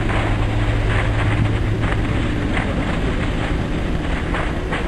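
A steady, loud low rumble with wind noise on the microphone and a few faint short crackles.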